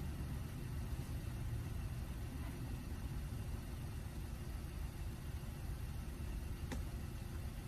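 Car engine idling steadily, heard from inside the cabin as a low rumble, with one faint click near the end.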